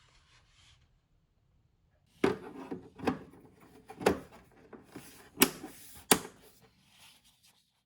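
Parts of a portable air conditioner being handled and fitted together: after a quiet start, a run of sharp knocks and clatters with handling noise between them, five loudest strikes about a second apart.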